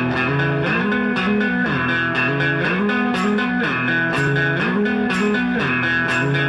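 Background music led by guitar, with low notes that slide up and down in a repeating pattern.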